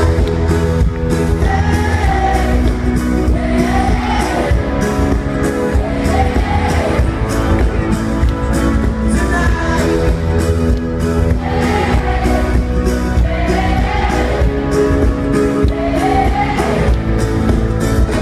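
Live pop-rock band playing with singing over a steady drum beat, heard from the audience.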